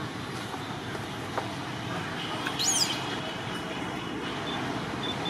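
Steady outdoor background noise with one short, high-pitched call that sweeps up and then down, about halfway through.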